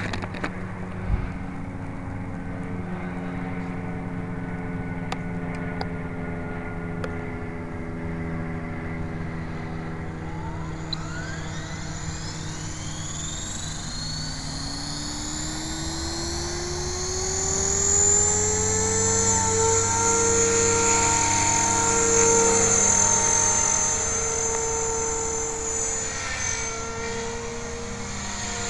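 Align T-Rex 500 electric RC helicopter spooling up. The whine of its motor and rotor rises in pitch over several seconds, then holds loud and steady at flying speed.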